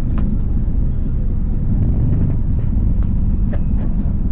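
Low, steady rumble of a car's engine and road noise heard from inside the cabin.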